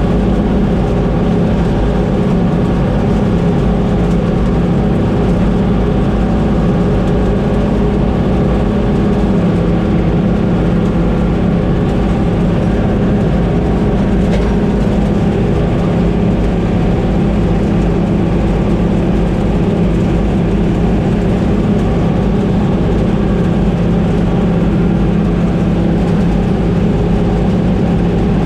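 Combine harvester running steadily, its engine and machinery droning at an unchanging pitch and level.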